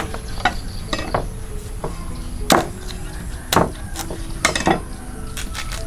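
Sharp knocks on a thick wooden chopping board as baby corn is cut: four main knocks about a second apart, the last two close together, with a few lighter taps between.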